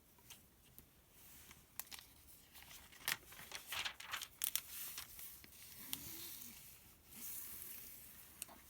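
Paper sales circular being handled and its pages turned, with crinkling and crackling of the paper and a longer rustling sweep near the end.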